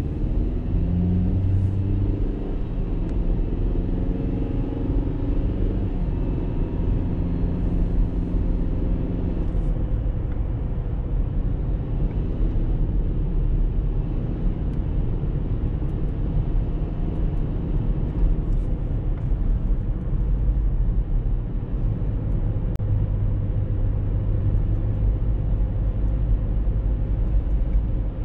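A car driving along a road at steady speed: a continuous low rumble of engine and tyres.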